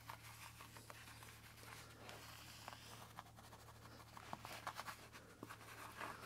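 Faint scratchy rustles and small irregular clicks of a long-haired German Shepherd puppy picking up and chewing small treats from the carpet beside a person's fingers.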